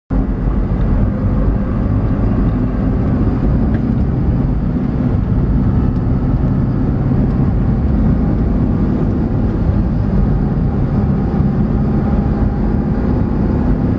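Steady low drone of a car's engine and tyres at cruising speed, heard from inside the cabin.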